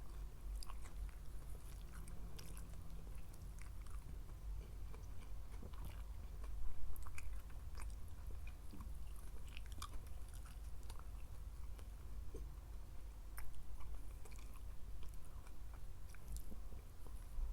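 Close-miked eating: steady chewing with many small wet mouth clicks, and louder bites about 7 seconds in and again near 13 seconds.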